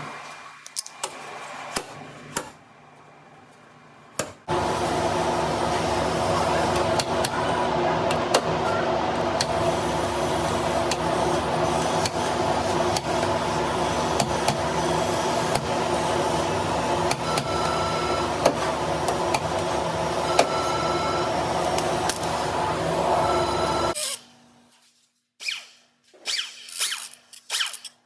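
Power tool running steadily for about twenty seconds, starting and stopping abruptly, with a few short bursts near the end, typical of sanding or grinding in body repair.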